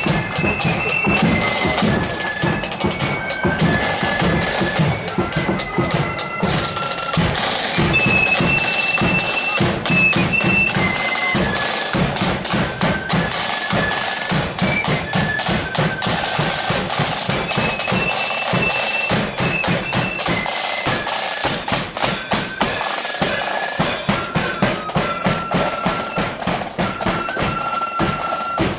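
Marching flute band playing: flutes carry a high tune over side drums and a bass drum.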